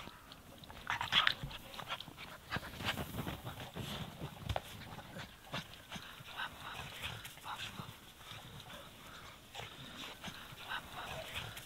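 Two dogs playing in deep snow, giving short scattered yelps and whines, the loudest about a second in, with rustling and crunching of snow as they tussle and are rubbed.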